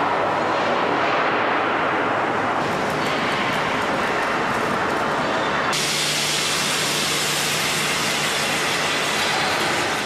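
Steady hissing rush of steel being cut and worked. About six seconds in it switches abruptly to a brighter, harsher hiss with a low steady hum: a gantry machine torch cutting steel plate.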